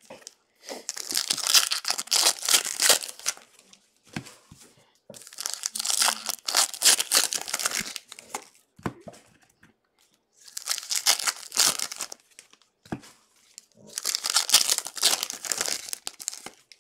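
Foil trading-card pack wrappers being torn open and crinkled by hand, in four spells of tearing and crackling, each two to three seconds long, with short pauses between.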